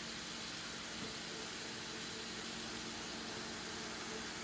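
Pot of chicken, chicken livers, onions and green peppers cooking on a stovetop, giving a steady low hiss with a faint steady hum.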